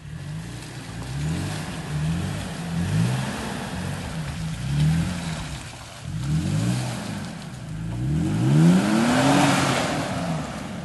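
Off-road 4x4 engine revving up and down in repeated bursts, the longest and loudest rev near the end.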